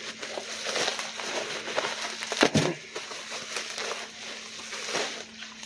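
Plastic bubble wrap crinkling and crackling as it is handled and pulled off a DVD, with one sharper snap about two and a half seconds in.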